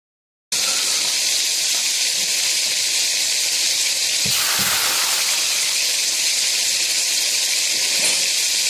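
Hot oil sizzling steadily in a fish-shaped cast-iron platter with a whole fish frying in it. The sizzle cuts in suddenly about half a second in and swells briefly about four seconds in.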